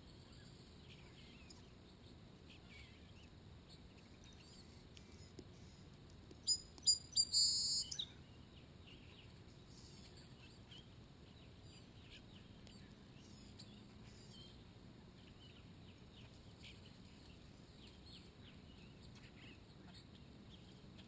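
Small songbirds chirping faintly, with a loud run of bird calls about six and a half seconds in: three or four short sharp notes, then one held high note lasting about half a second that cuts off suddenly.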